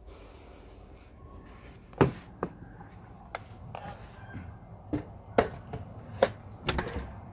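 A series of sharp, irregular knocks and clicks, about eight in all, over a faint low background: handling and walking noise while the drone with the phone taped to it is carried.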